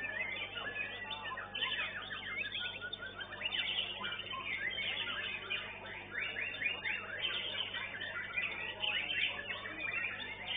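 White-rumped shama (murai batu) singing in a competition cage: a dense, unbroken run of rapid chirps and whistles, with other contest songbirds overlapping.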